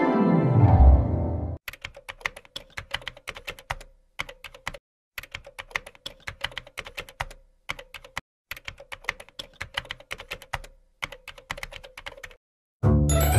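A descending pitch sweep, then a keyboard typing sound effect: runs of rapid key clicks broken by short pauses. Music starts just before the end.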